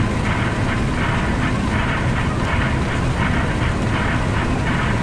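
Steady flight-deck noise of an Embraer 175 on approach: a low rumble of airflow and engines. A faint swish repeats about twice a second from the windshield wipers sweeping the rain-covered glass.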